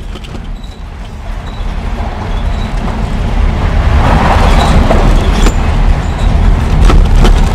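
Truck driving on a rough dirt road, heard from inside the cab: a loud low rumble of engine and tyres that grows over the first few seconds, with a few sharp knocks from bumps near the end.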